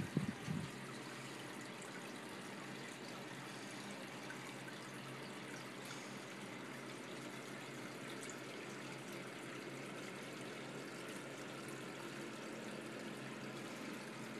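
Steady trickling of a saltwater reef aquarium's circulating water, an even hiss that does not change. A couple of brief low bumps right at the start.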